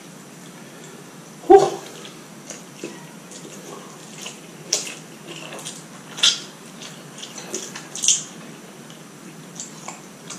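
A person eating spicy instant noodles with chopsticks: irregular wet slurps and chewing smacks. One louder short bump about a second and a half in.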